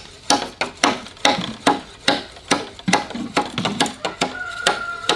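A steady series of sharp knocks, about two or three a second, each with a brief ring. A faint steady high tone joins about four seconds in.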